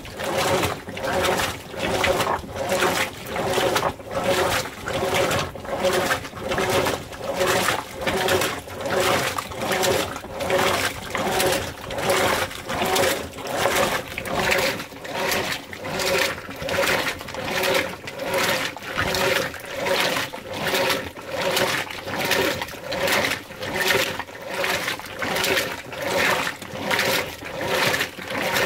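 Whirlpool Cabrio top-load washer agitating a load: its wash plate swishes the clothes and water back and forth in a steady rhythm of about one and a half strokes a second, with the drive motor humming under each stroke.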